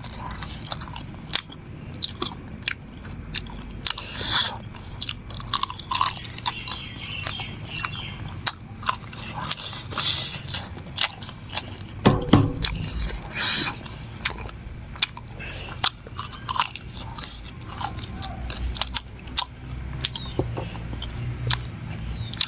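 Close-up eating sounds: chewing, biting and crunching on spicy chicken legs and pork intestine with rice, with many sharp wet clicks and smacks and a few louder slurps.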